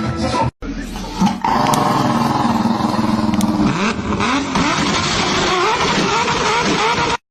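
A motor vehicle engine running and revving, its pitch rising and falling repeatedly.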